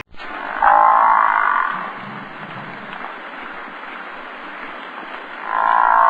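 An animal calling twice, each call about a second long, once near the start and again near the end, over a steady background hiss.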